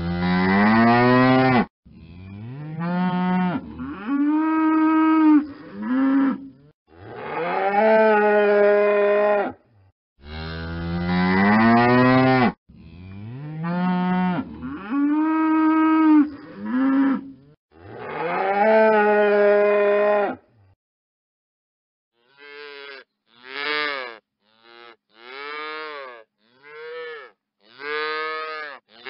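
Cattle mooing: a run of five long, drawn-out moos, then the same run again, and after a short pause a quicker series of about seven short moos.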